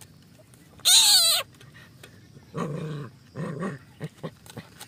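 A puppy gives one loud, high-pitched yelp about a second in, then two short low growls as it bites at a bamboo frog trap. Scattered light clicks of the bamboo cage follow near the end.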